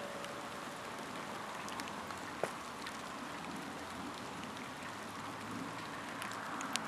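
Steady even hiss of outdoor ambience, with a few faint ticks and a short click about two and a half seconds in.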